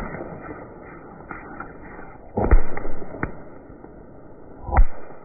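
Fireworks going off: a few sharp bangs with a low boom after each, the loudest about two and a half seconds in and another strong one near the end, with fainter pops between. The sound is dull and muffled, with no treble.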